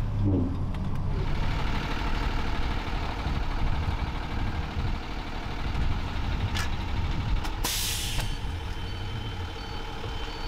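School bus engine idling with a steady low rumble. About eight seconds in comes a short, loud hiss of released air from the bus's air system.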